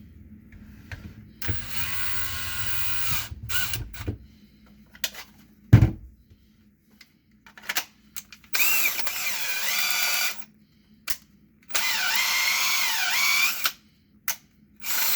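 DeWalt DCD995 cordless hammer drill run in several short trigger pulls of one to two seconds each, on a test after its gear selector was repaired. The motor's pitch rises and dips within the later runs as the speed changes. A single low thump comes about halfway through.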